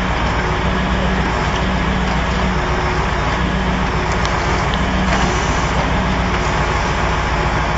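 Truck engine running steadily to power a truck-mounted grapple crane crushing a car body down into a scrap container, with a few faint metal cracks a few seconds in.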